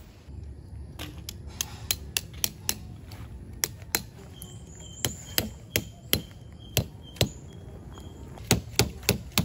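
A series of about twenty sharp, irregularly spaced knocks, like repeated hammer or chopping strikes, with the loudest blows coming close together near the end.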